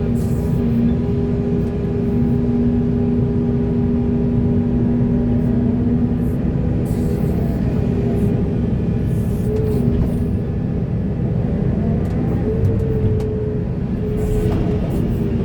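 Heavy diesel engine of earthmoving machinery running steadily under load, a continuous drone whose pitch wavers slightly in the second half. There are a few brief hissy noises around the middle.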